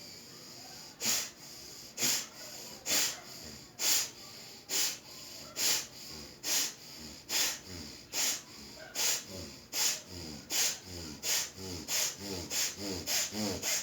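Surya Bhastrika (bellows breathing) through the right nostril: forceful, rhythmic rushes of breath, about one a second at first and quickening to about two a second near the end.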